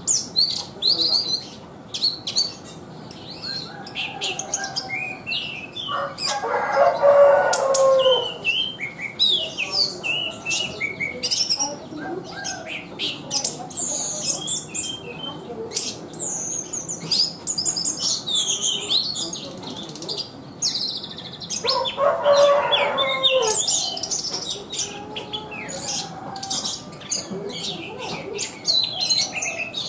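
Thrush (burung anis) singing continuously: a fast, varied stream of high whistled and chattering notes. Twice, around seven and twenty-two seconds in, a louder, lower call sounds beneath the song.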